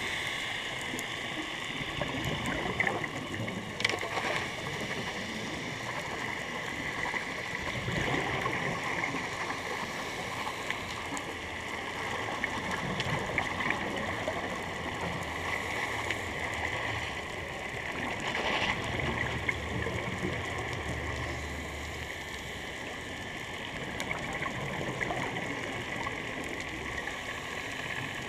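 Underwater ambience on a scuba dive: a steady hiss and crackle, with a few louder rushes of scuba divers' exhaled bubbles.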